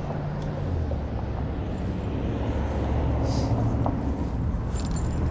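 A vehicle engine running with a steady low hum that drops lower about a second in, under a constant rushing background.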